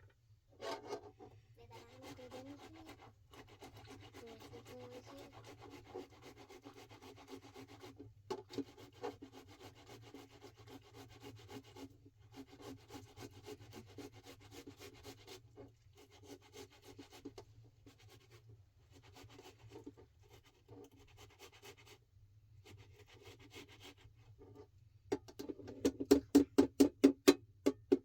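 Continuous scraping and rubbing by hand, broken by short pauses, then near the end a quick run of about a dozen sharp knocks, the loudest sounds here.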